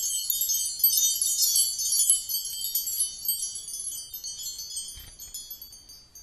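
Sparkling chime sound effect: a dense shower of high, tinkling chime notes. It is fullest in the first couple of seconds, then thins out and fades away toward the end.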